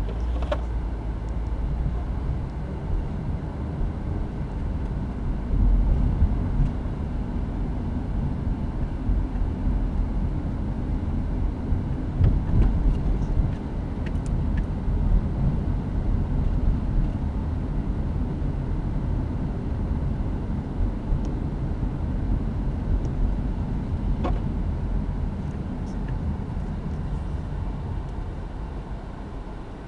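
Car interior road and engine noise while driving: a steady low rumble that steps up as the car pulls away at the start, with a few faint clicks.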